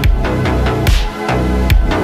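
Background electronic music with a heavy bass line and sharp drum hits on a steady beat.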